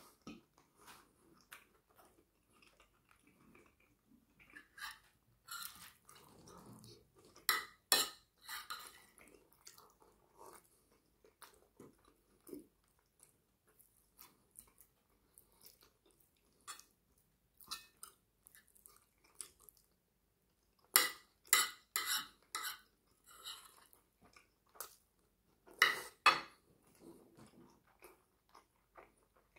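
Metal spoon scraping and clinking on a plate as leftover curry and rice are gathered up, with soft chewing in between. The loudest clinks come in short clusters about a quarter of the way in, about two-thirds in and near the end.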